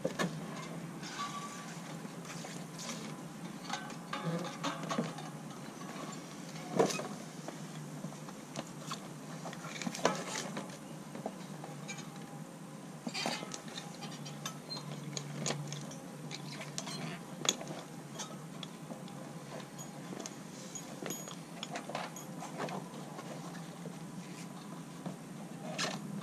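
Irregular clicks, taps and knocks of hands working a 36-inch unicycle tyre and inner tube onto the rim, over a steady low hum. A few sharper clicks stand out, about 7, 10 and 17 seconds in.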